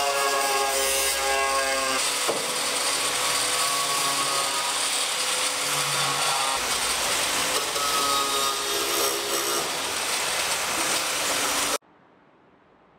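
Power tools running: a loud grinding noise with a whine whose pitch jumps abruptly every few seconds, as if cut between different tools. It breaks off suddenly near the end, leaving only a faint hum.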